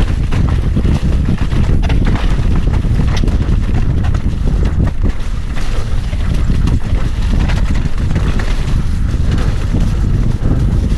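Wind buffeting the microphone with a heavy low rumble, mixed with frequent rattles and knocks from a mountain bike riding a rough, muddy trail.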